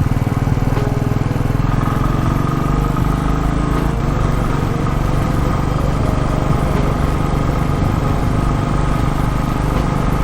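Royal Enfield Classic 350's single-cylinder engine running steadily under way, its note creeping up slightly in pitch over the first few seconds, with a steady rush of noise over it.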